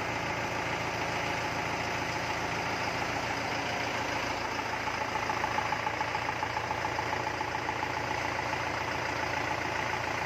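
Mahindra 4025 tractor's diesel engine idling steadily.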